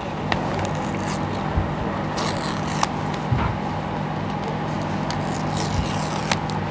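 Paper pull-tab tear strips being ripped off a sealed iPhone box: two short rasping tears about three seconds apart, with a few small clicks of the cardboard being handled. A steady low hum runs underneath.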